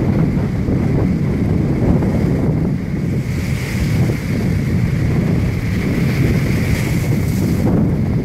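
Strong wind buffeting the microphone over a rough sea, with storm waves breaking against a sea wall. A hiss of surf and spray swells from about three seconds in and drops away near the end.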